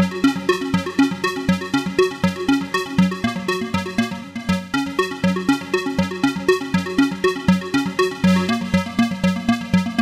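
GForce Axxess software synthesizer playing an arpeggiated square-wave preset: a fast, even run of short repeated synth notes cycling through a pattern.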